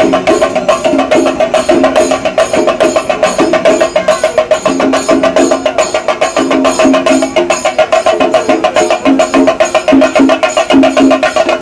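Chenda drums beaten with sticks by a group of drummers, a fast, dense, continuous rhythm of strokes.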